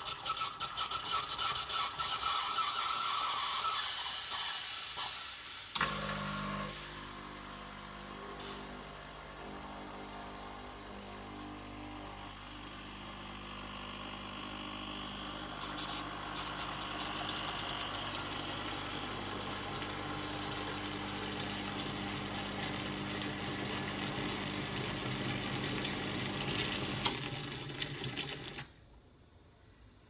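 Espresso machine hissing from its hot-water wand as the valve is opened. About six seconds in, the pump starts and runs with a steady hum while it pushes the descaling solution out through the wand into a cup. The pump cuts off suddenly near the end.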